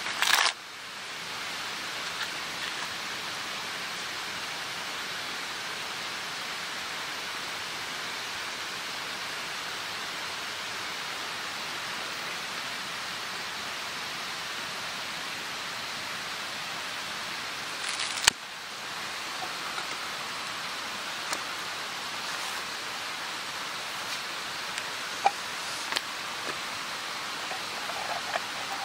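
A steady, even hiss with a few faint small clicks, interrupted by a sharp click about 18 seconds in.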